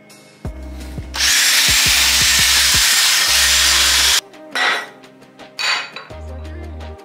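Cordless drill spinning a flap sanding wheel against welded metal, smoothing down the welds: a steady, loud sanding hiss for about three seconds, then two short touches of the wheel. Background music plays underneath and is heard on its own near the end.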